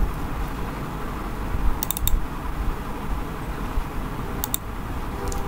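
A few sharp computer mouse clicks, a quick cluster about two seconds in and a couple more near the end, over a steady low background hum.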